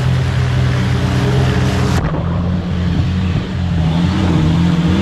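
Off-road 4x4 engine running under load as the vehicle wades through deep water, then, after a cut about two seconds in, a 4x4 engine revving hard as it churns through mud, its pitch climbing near the end.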